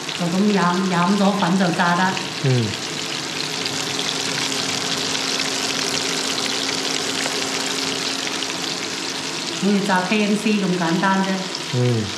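Flour-coated chicken wings deep-frying in hot oil: a steady, dense crackling sizzle.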